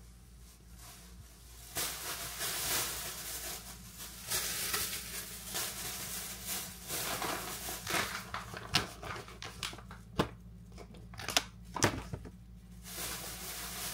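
Plastic grocery bag rustling and crinkling as items are pulled out of it. Several sharp knocks in the second half, as packages are handled and set down on the counter.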